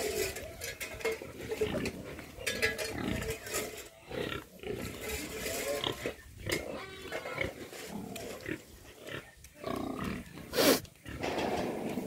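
Domestic pigs grunting irregularly in their pens, with one louder call near the end.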